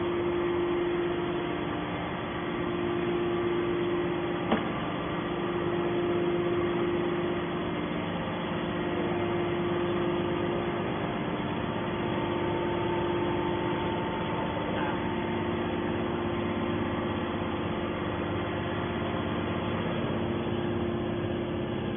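Hydraulic can baler's motor and pump running with a steady hum. A single sharp click comes about four and a half seconds in.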